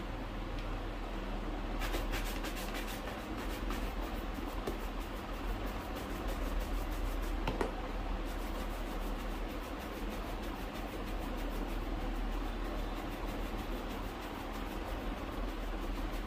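Steady scrubbing on a shoe during cleaning and polishing, in quick continuous strokes over a low hum, with a faint click about seven and a half seconds in.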